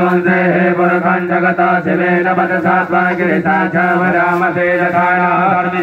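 Group of priests chanting Vedic mantras for a Rudrabhishek in a steady recitation, amplified through microphones and loudspeakers, with a steady low drone underneath.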